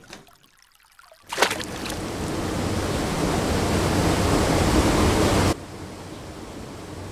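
Cartoon flood sound effect: about a second in, a sudden splash opens into a loud rushing of water that builds steadily. Near the end it drops abruptly to a quieter, steady wash of noise.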